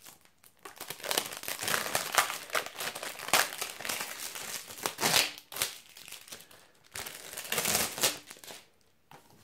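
Plastic shrink-wrap being pulled off a DVD case and crumpled, in bursts of crinkling with a short lull midway. It stops shortly before the end.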